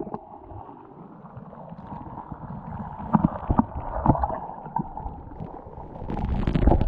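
Muffled underwater sound picked up by a submerged action camera: low gurgling water with a few dull knocks from the swimmer's movements about three to four seconds in. Near the end the sound grows louder and rougher as water splashes around the camera breaking the surface.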